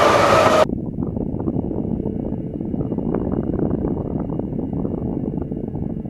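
Railway wagon rolling along the track: a loud, hissing burst for about the first half-second, then a steady rumble and clatter of the wheels on the rails.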